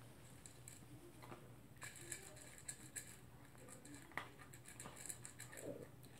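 Toy poodle eating from a bowl: faint, irregular crunching and small clicks as it chews and picks up food.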